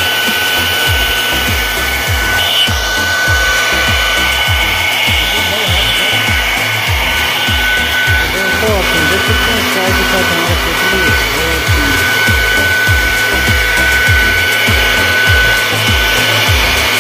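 CNC router spindle whining steadily as it cuts an ACP (aluminium composite) sign sheet, over background music with a steady bass beat.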